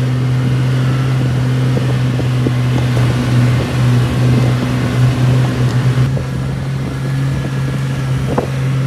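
Jeep Wrangler LJ's 4.0-litre inline-six engine running with a steady drone as it drives along a dirt road, with uneven knocks and rattles from the rough track around the middle.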